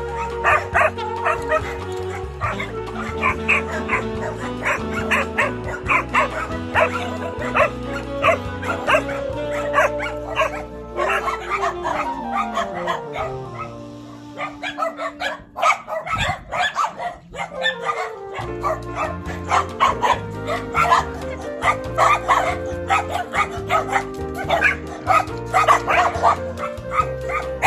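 Many dogs barking in quick, repeated barks over background music with a steady bass line; both thin out for a few seconds past the middle, then the barking picks up again.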